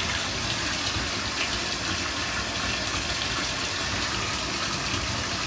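Bathtub faucet running, a steady stream of water pouring into the filling tub.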